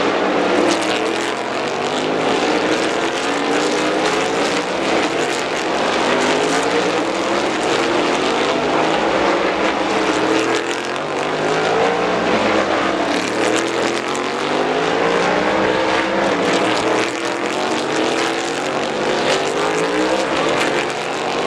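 Several race cars' engines accelerating out of a tight corner one after another. Their pitch climbs again and again, and the cars overlap into a continuous loud drone.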